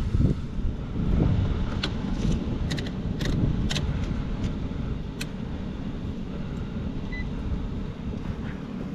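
Lennox heat pump package unit running: a steady low fan and compressor rumble, with a few light clicks and taps from a clamp meter being handled on its wiring.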